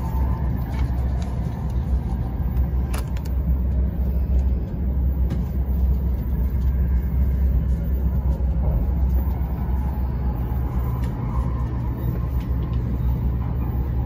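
Steady low rumble of a passenger train running, heard from inside the carriage, with a few faint clicks over it.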